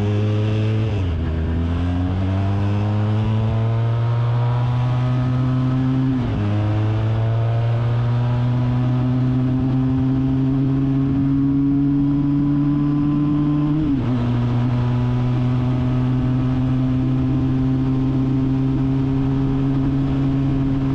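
Engine of a 400 cc Zongshen-built Kawasaki Z1000 replica motorcycle accelerating through the gears. Its pitch rises in each gear and drops at upshifts about one, six and fourteen seconds in, then it runs at a steady pitch while cruising.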